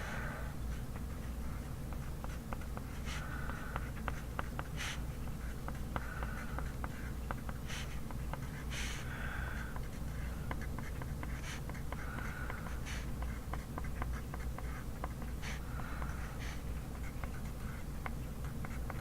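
Handwriting on paper: short, irregular scratching strokes and small clicks, over a steady low hum.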